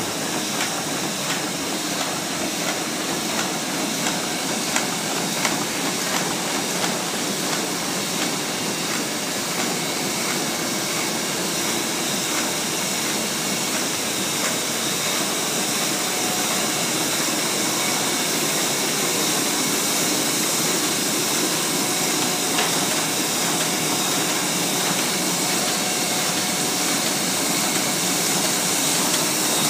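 Heidelberg GTO 52 five-colour sheetfed offset press running: a steady mechanical running noise with a constant hiss and a few faint ticks, growing a little louder toward the end.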